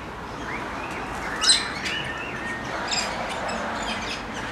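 A flock of galahs calling, repeated short high calls overlapping one another, with a sharp louder call about a second and a half in.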